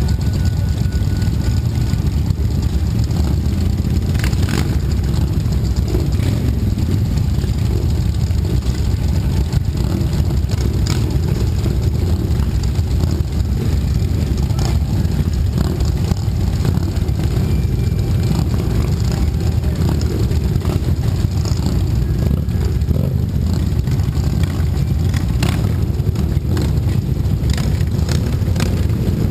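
Several motorcycles idling together in a steady low rumble, the camera's own bike loudest, with a few faint clicks.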